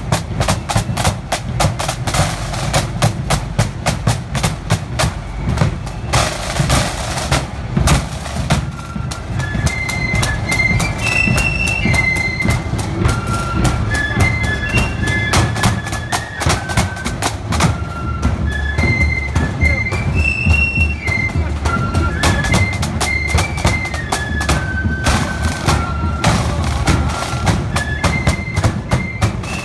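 Marching flute band on parade: side drums beat a rapid march over a bass drum. About nine seconds in, the flutes come in with a high, bright melody above the drums.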